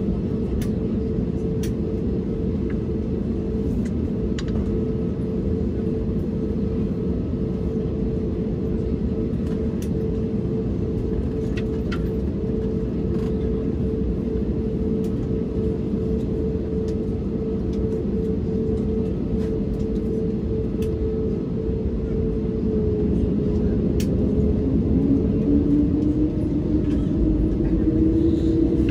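Engine noise of an Airbus A320neo with CFM LEAP-1A engines, heard inside the cabin from a seat behind the wing: a steady hum and rumble. About three-quarters of the way through, an engine tone rises in pitch and the noise grows louder as thrust increases.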